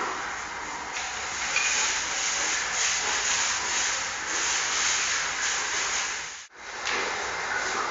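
Steady hiss of noise that drops out abruptly for a split second about six and a half seconds in.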